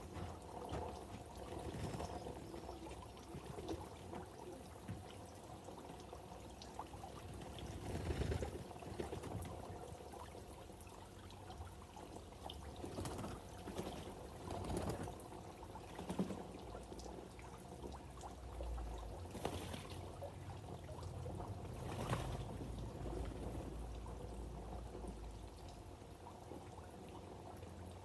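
Water pouring and trickling steadily, with a few brief louder noises scattered through.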